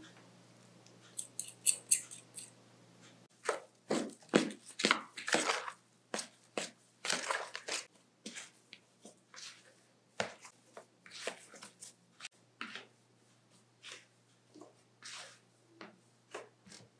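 Hands kneading and mixing spiced mashed potato in a plastic bowl: a fast, irregular run of short, sharp sounds, starting about three seconds in after a quieter stretch with a few light clicks.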